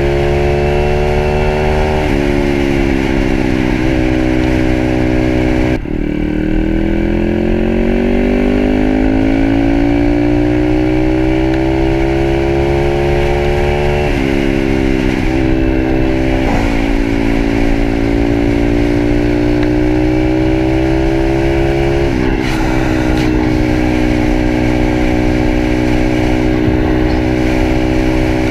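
Pitster Pro 160cc pit bike's single-cylinder four-stroke engine under way, its note climbing as it accelerates and stepping down abruptly several times at gear changes.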